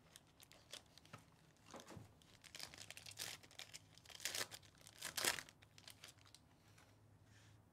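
Faint crinkling and tearing of a Bowman University Inception foil card pack being ripped open by hand, a run of irregular rustles loudest about four and five seconds in.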